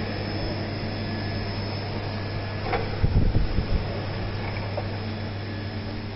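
Steady low machine hum, with a sharp metallic click about two and a half seconds in and a few low knocks right after, as a wheeled chain-pulling tower is moved into position on a frame straightening bench.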